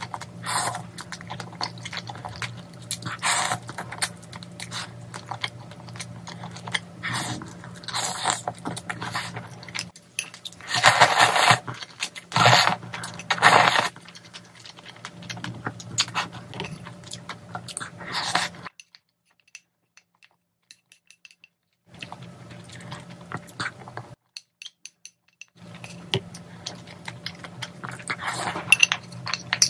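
Close-miked eating: chewing rice and pork-bone stew, with chopsticks and a spoon clicking against a ceramic bowl, over a steady low hum. Partway through there are two louder slurps of broth from the bowl, and the sound cuts out to silence twice for a few seconds.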